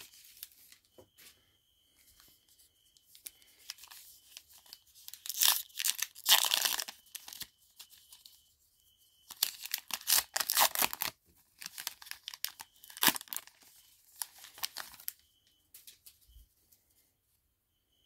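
A trading-card pack's wrapper is torn open and crinkled by hand. The tearing and crinkling comes in separate bursts and is loudest about five to seven seconds in.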